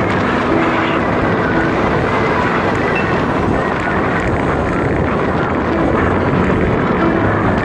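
Wind rushing over the microphone of a handlebar-mounted camera on a road bike descending at speed: a loud, steady rush of noise.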